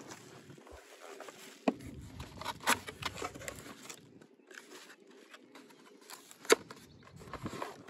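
A small cardboard box being handled and its flap pulled open, with cardboard scraping and bubble wrap rustling. Three sharp knocks come about two seconds in, again a second later, and loudest near the end.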